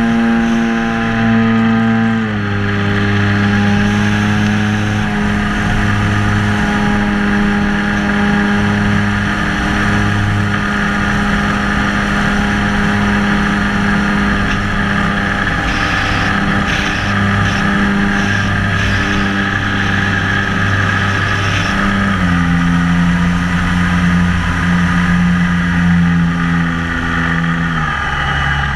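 Electric motor and propeller of a ParkZone J-3 Cub model plane in flight, heard from a camera on the plane: a steady whine with wind rushing over the microphone. The pitch drops in steps as the throttle is eased back, a couple of seconds in, again about three-quarters through, and once more near the end.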